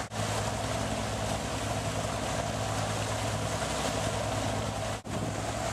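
A boat's engine running steadily, a low hum under the rush of wind and water. The sound drops out for a moment about five seconds in.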